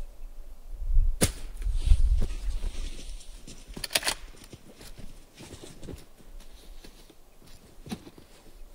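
Shooter getting down prone behind a scoped rifle on a mat in snow: a sharp knock about a second in, a quick cluster of clicks and knocks near four seconds from gear and rifle being handled, then scattered light ticks and rustling, over a low rumble in the first half.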